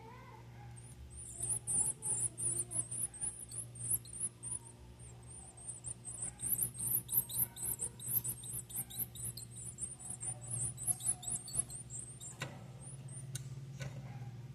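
Blue-black grassquit (tiziu) nestlings giving a fast, dense run of very high-pitched begging chirps, starting about a second in and stopping near the end. A steady low hum runs underneath.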